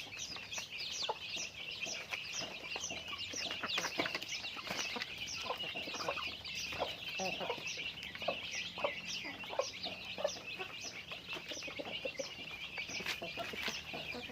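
A flock of chickens clucking, over a constant run of quick, high-pitched chirping calls.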